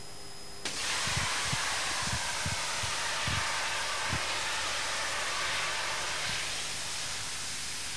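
A 3 kg automatic CO2 fire suppression system discharging onto a fuel fire: carbon dioxide gas hissing from the diffuser nozzle. The hiss starts suddenly about a second in, holds steady, and eases slightly near the end.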